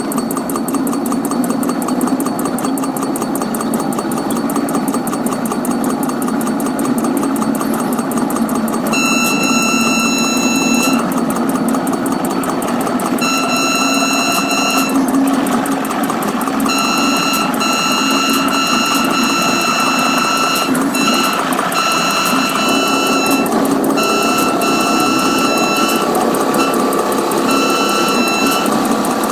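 Commuter train running noise played back four times faster, with repeated high-pitched blasts of the cab car's Nathan P2 horn, raised in pitch by the speed-up. The horn starts about nine seconds in with two long blasts, then sounds almost continuously with short breaks, as for grade crossings.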